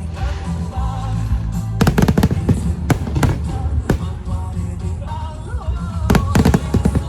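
Fireworks shells bursting with sharp bangs over music with singing. There is a quick volley of bangs about two seconds in, single bangs around three and four seconds, and another volley near six seconds.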